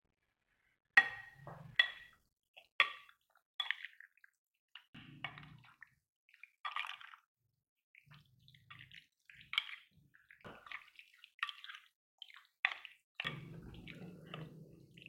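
A plastic spoon mixing chunks of raw chicken into a yogurt and spice marinade in a glass bowl: irregular sharp clicks of the spoon against the glass, with wet squelching in between.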